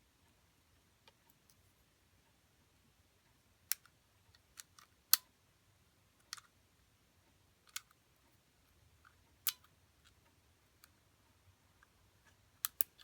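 Scattered sharp clicks and taps from objects being handled, about a dozen at irregular intervals. The loudest comes about five seconds in, and two close together near the end.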